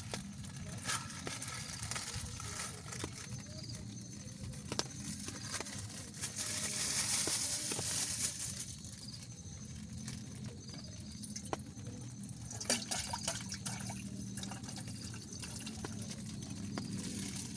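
Water dripping and trickling in irregular drops, with a louder hissing pour or splash lasting about two seconds around six seconds in.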